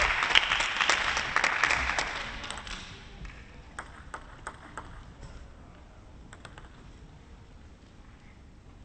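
Spectator applause in a sports hall dying away over the first two to three seconds, followed by a few scattered sharp taps.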